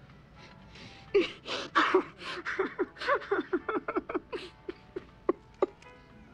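A man sobbing and moaning: breathy gasps from about a second in, then a run of short, choked vocal pulses that thin out to two last ones near the end.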